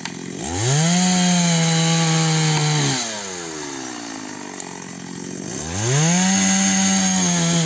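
Two-stroke chainsaw revved to full throttle twice, each burst held for about two and a half seconds, cutting into the base of a rubber tree trunk, and dropping back to idle in between.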